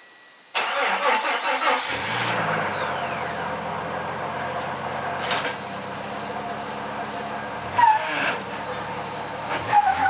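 Jeep engine starting suddenly with a brief rev, then idling steadily. Two short high squeaks come near the end, about two seconds apart.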